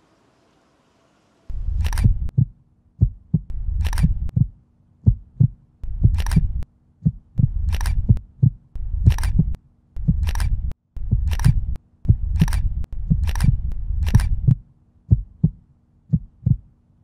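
A deep, low pulsing throb begins about two seconds in: repeated thumps under a second long, each with a sharp click on top, coming unevenly at roughly one a second. It is a sound-design effect laid over the film.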